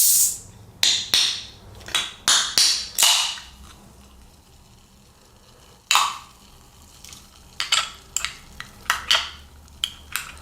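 An aluminium soda can's pull tab being levered open with the can-opener hook of a Swiss Army knife: a sudden pop and hiss of escaping gas, followed by further short fizzing hisses and small metallic clicks.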